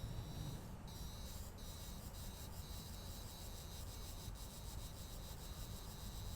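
Insects chirring in a steady high-pitched trill that pulses evenly, over a low rumble.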